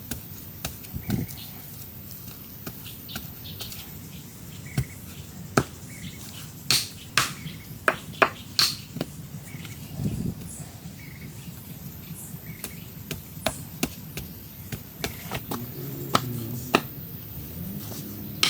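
Irregular sharp knocks and cracks of wood being worked, with a quicker run of them around the middle.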